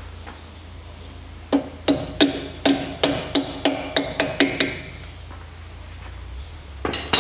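A quick run of about a dozen sharp, hollow knocks, three to four a second for about three seconds, as parts in the front wheel arch are knocked during reassembly. A short clatter follows near the end.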